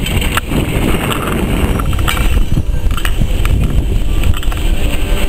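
Wind buffeting the microphone over a small steam tank locomotive moving slowly along the yard tracks, with a few sharp clanks scattered through.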